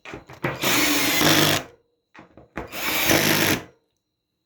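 Power drill driving screws back into a dryer panel: two runs of about a second each, with short clicks before and between.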